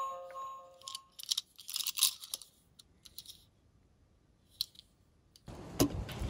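A short chiming melody fades out about a second in, followed by scattered light clicks and rustles. Near the end a steady rattling rumble starts and grows: small die-cast toy cars rolling down a plastic slope.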